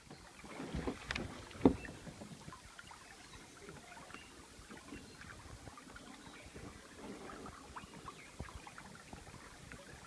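Kayak paddling on a small stream: paddle splashes and knocks, the loudest a sharp knock a little under two seconds in, then a steady patter of small splashes and water dripping and burbling.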